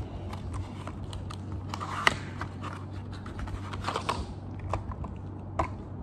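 Hands handling a small cardboard product box and plastic mailer packaging: crinkling with light taps and clicks, the sharpest tap about two seconds in, and the box knocked down onto a tile floor near the end. A low steady hum runs underneath.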